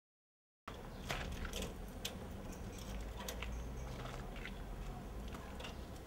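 Footsteps and small clicks and taps, about two a second, as a person walks in through a doorway, over a steady low rumble. The sound cuts in suddenly after a short silence.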